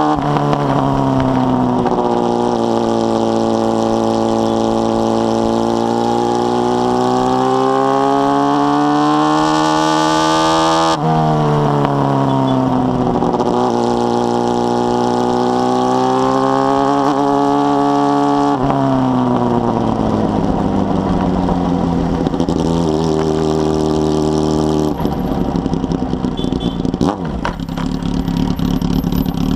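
Carbureted Honda Hornet 600 inline-four engine through a 4-into-1 exhaust, pulling up through the revs under acceleration. The pitch drops sharply at a gear change about eleven seconds in, climbs again, then falls away as the bike slows. Near the end the engine note gives way to rougher road noise.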